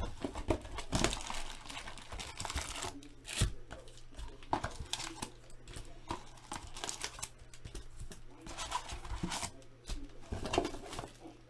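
Cellophane wrap and foil trading-card packs crinkling and rustling, with cardboard box handling, as a box of football cards is opened and its packs are lifted out. Irregular crackles and scrapes throughout.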